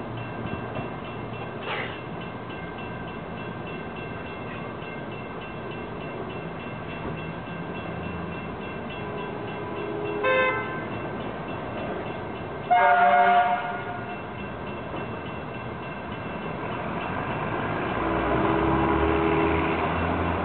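LIRR DE30AC diesel locomotive sounding two short horn blasts, a brief one about ten seconds in and a louder, slightly longer one about three seconds later, while a bell rings faintly throughout. Engine and rail noise swell near the end as the train approaches.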